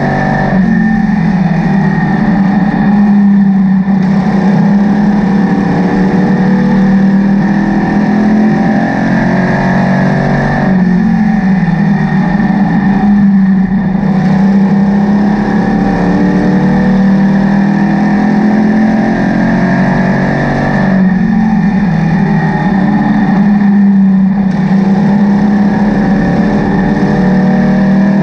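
Race car engine heard from inside the cockpit at racing speed, climbing in pitch along each straight and backing off into the turns. The cycle repeats about every ten seconds, three times, as the car laps a short oval.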